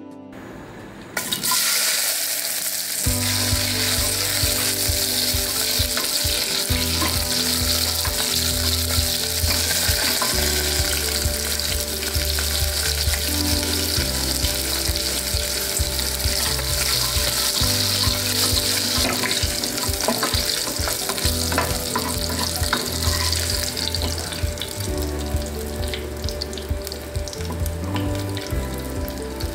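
Cut okra frying in hot oil in a nonstick saucepan, a steady loud sizzle that starts about a second in, while a wooden spatula stirs the pieces.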